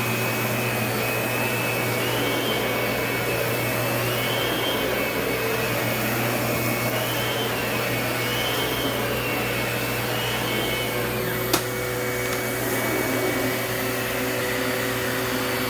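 Lindhaus vacuum cleaner running steadily, with a wavering whine over its motor hum. A single sharp click comes about three-quarters of the way through, and the hum changes slightly after it.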